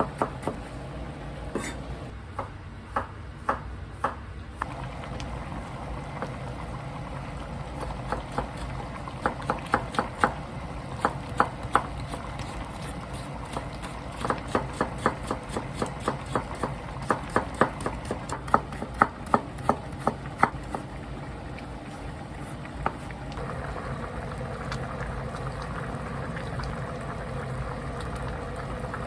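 Kitchen knife chopping on a cutting board in several runs of quick, even strokes with pauses between them. About three-quarters of the way through, a steady rushing noise with a low hum starts and continues.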